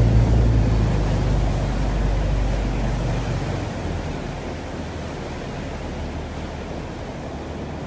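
Water rushing and splashing between a moving boat and a ship's steel hull, mixed with wind on the microphone. A low engine hum under it fades about three and a half seconds in, and the whole sound slowly gets quieter.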